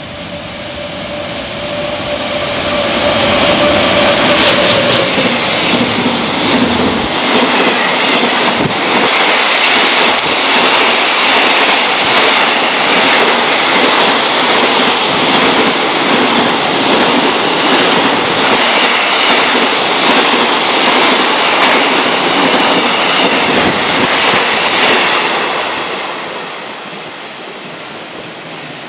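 An EF200 electric locomotive hauls a long freight train past at speed. A steady hum from the locomotive dips slightly in pitch as it goes by in the first few seconds, then comes a long, loud run of wagon wheels clattering over rail joints, which fades away near the end.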